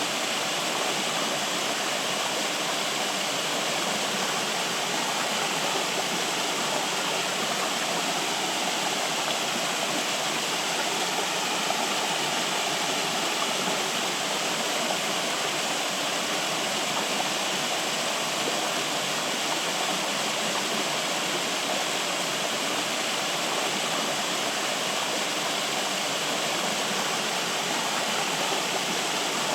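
Flowing water rushing steadily, an even, unchanging wash of sound.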